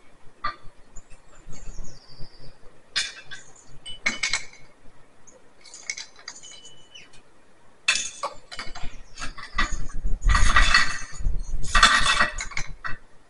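Metal clinking and rattling from a loaded push sled: scattered knocks and clinks, then near the end two longer runs of rattling and scraping, the loudest part.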